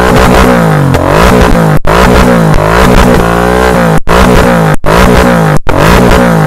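Royal Enfield Continental GT 650 parallel-twin, Code 6 tuned and fitted with a Moto Torque aftermarket exhaust, being blipped repeatedly, the revs rising and falling about once a second. The throttle blips are meant to draw out the tune's pops on the overrun. The sound cuts out abruptly for an instant several times.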